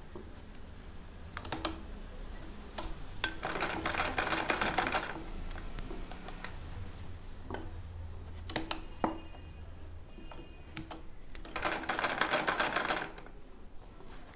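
Sewing machine stitching pleats down in two short runs, a rapid clatter of needle strokes about three seconds in and again about twelve seconds in, each under two seconds long. A few single clicks of the machine and fabric being handled come between the runs.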